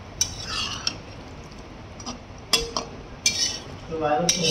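A spatula scraping and knocking against a metal kadhai while a dry potato-and-pea curry is stirred, giving several separate clinks and scrapes.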